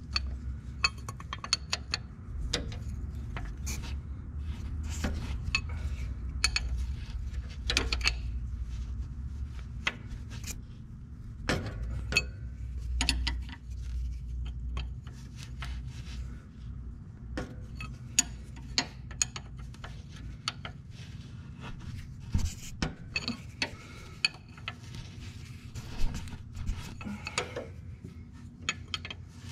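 Wrench and hand working a rusted steel linkage on an old Hyster forklift that has just begun to turn: irregular metal clinks, taps and scrapes, over a low steady hum.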